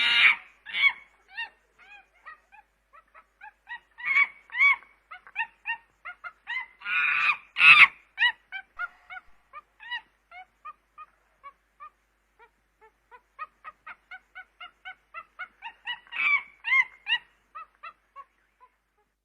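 Chimpanzee calls: a rapid run of short hooting calls, several a second, broken by louder, harsher outbursts near the start, about halfway through, and again near the end.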